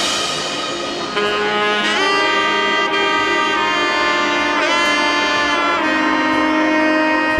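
Background music led by sustained saxophone or brass notes, some bending in pitch, with no drums.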